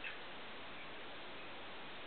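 Quiet room tone: a steady hiss, with one faint short click right at the start.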